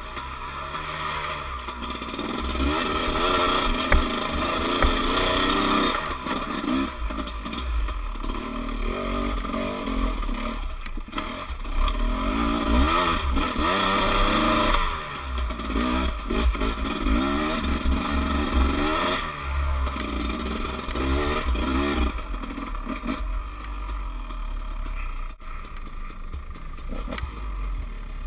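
Dirt bike engine heard from the rider's helmet camera, revving up and dropping back over and over as the throttle is worked along a rough trail, with low buffeting on the microphone.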